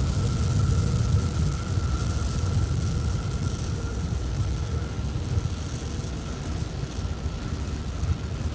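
Rocket exhaust from Starship SN11's three Raptor engines on ascent: a heavy, crackling low rumble that eases off slightly as the vehicle climbs away.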